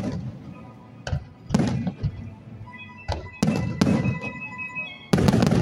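Aerial firework shells bursting overhead: a loud bang about a second and a half in, a quick cluster of bangs around three and a half to four seconds, and the loudest burst near the end, each trailing off briefly.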